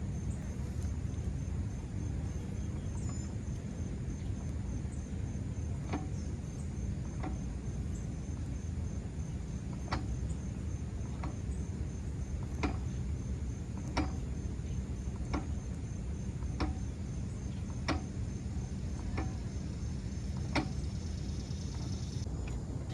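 Outdoor ambience: a steady low rumble with a faint, high, pulsing insect trill, and a sharp click repeating about every second and a quarter from about six seconds in until near the end.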